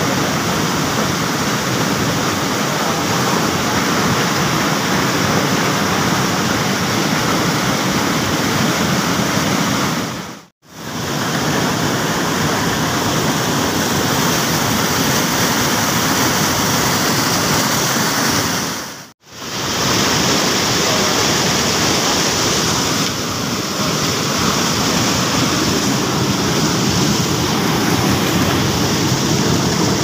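Loud, steady rush of white water pouring over rocks at a stream's falls. It drops out briefly twice.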